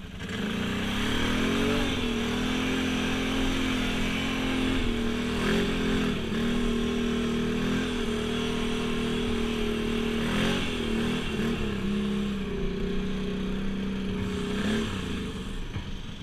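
ATV engine picking up speed about a third of a second in, then running at a steady cruising throttle, with a few brief dips and wobbles in pitch as the throttle is eased and reapplied. It eases off near the end.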